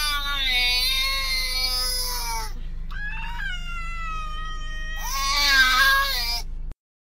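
A kitten and a young child trading meows: a long, wavering, hoarse meow from the child, a shorter, cleaner cat meow about three seconds in, then another drawn-out child's meow about five seconds in.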